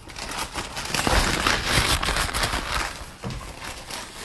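Brown paper bag crinkling and rustling as it is handled and a dog noses into it, loudest in the middle and dying down near the end.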